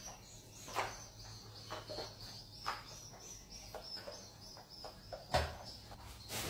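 Mop strokes swishing over a tiled floor, several times, with a heavier knock about five seconds in. Continuous high bird chirping carries on throughout.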